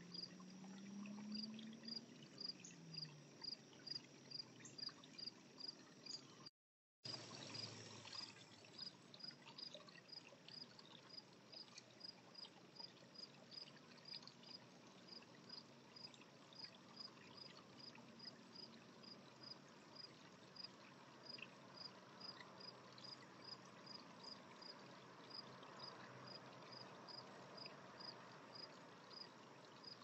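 A cricket chirping steadily and faintly, about two short high chirps a second.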